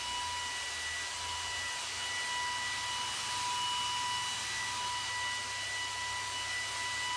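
Handheld electric paint sprayer running steadily, spraying thinned metal primer: a constant high whine over a hiss.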